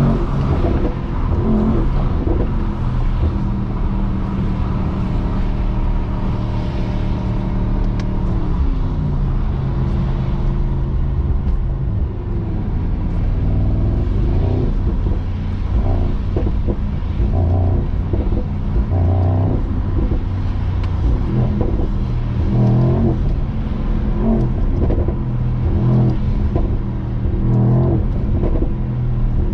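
Mercedes-AMG SL55's 4.0-litre biturbo V8 running under way with its sport exhaust open, the engine note steady, then stepping down about eight seconds in and rising and falling through the rest.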